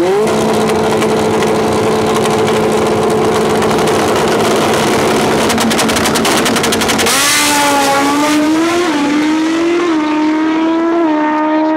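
Pro Street drag-racing motorcycle engines held at high revs on the starting line, a steady loud note with rapid crackling toward the end of the hold. About seven seconds in they launch and the engine note changes, climbing and stepping as the bikes run off down the drag strip.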